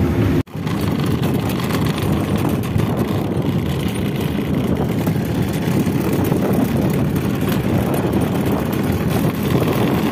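Scooter engine running steadily while riding, with road and wind noise, after a brief break in the sound just under half a second in.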